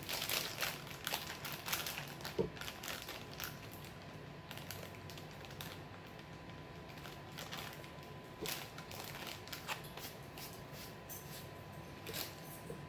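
Plastic candy bag crinkling and rustling in the hands, thickest in the first few seconds, then thinning to scattered light clicks and ticks.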